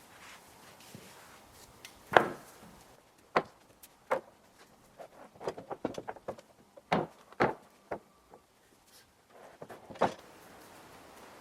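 Irregular wooden knocks and clunks of lumber being handled, the loudest about two seconds in, with a quick run of smaller knocks in the middle.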